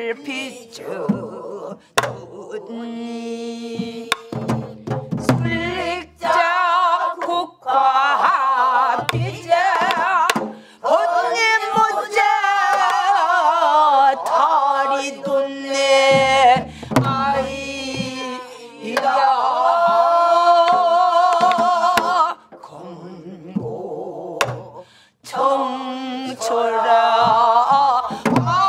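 Namdo folk song (Namdo minyo) sung in the rough, heavily shaken Korean traditional vocal style, a woman leading and a group of women and men singing with her, accompanied by occasional strokes on a buk barrel drum.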